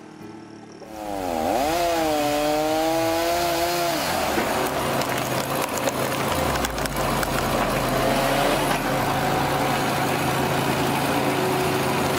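A powered saw cutting into wood: about a second in it starts loud, its motor pitch dipping and then recovering as the blade bites, then it runs on steadily through the cut.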